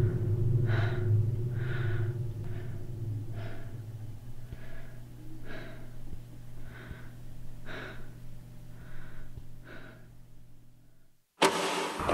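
Soft, heavy breaths about once a second over a low steady drone that fades away. Near the end everything cuts to silence, then a sudden loud burst of noise hits and carries on.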